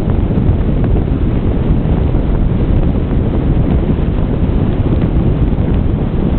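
Wind buffeting the microphone of a camera riding in an open convertible, a steady loud rumble mixed with the car's road noise as it drives.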